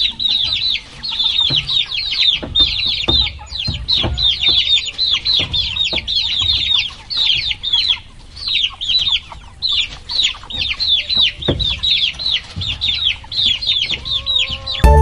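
A flock of chicks peeping nonstop, many short high notes each falling in pitch, several a second and overlapping. Scattered low knocks sound underneath, and music cuts in at the very end.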